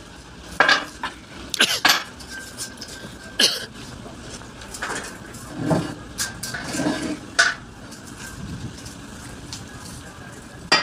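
Steel lift-axle parts clinking and clanking against each other and the press bed as they are handled: several sharp metallic knocks with short ringing, irregularly spaced, the loudest in the first two seconds.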